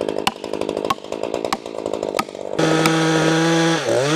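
Gas chainsaw cutting through a log under load, then breaking through the wood about two and a half seconds in and revving freely at full speed, before the throttle is released and the engine falls back toward idle near the end.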